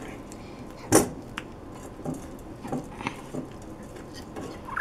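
Handling noises on a table: a sharp clack about a second in, then a few lighter taps and rustles.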